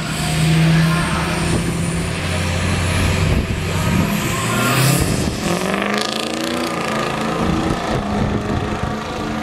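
A Ford F-350's 6.0-litre Power Stroke V8 turbodiesel held at steady revs on the start line, then launching hard about four to five seconds in, with a rising turbo whistle. Its sound then drops in pitch and fades as the truck pulls away down the strip.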